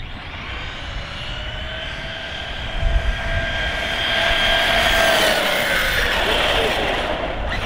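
ARRMA Kraton RC monster truck's Leopard 4082 2000kV brushless motor and drivetrain whining at full throttle on a 4S battery during a speed pass, over a steady hiss. The whine grows louder as the truck approaches, then drops in pitch about six seconds in as it goes by.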